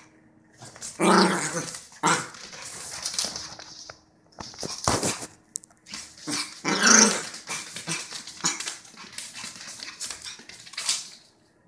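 Small Maltese dog barking and growling in repeated bursts, loudest about a second in and again around seven seconds.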